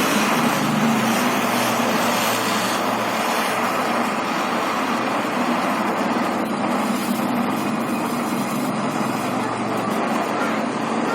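Canister gas torch burning with a steady hissing flame, a low rumble running under it.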